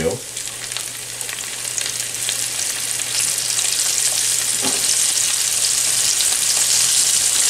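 A flour-dredged snapper steak sizzling and crackling in hot oil in a frying pan, the sizzle growing louder over the first few seconds and then holding steady.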